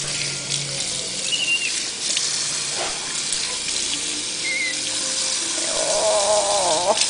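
Tap water running and splashing in a sink as a pet monkey is washed, with two brief high chirps and, near the end, a wavering voice-like sound.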